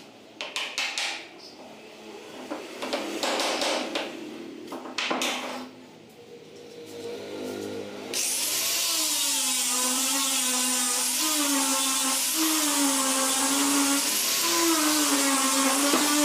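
A few knocks of wooden pieces being handled and fitted together, then about halfway through an electric angle grinder with an abrasive disc starts abruptly and runs, its whine wavering up and down in pitch as it is worked against the wooden joint to sand it flush.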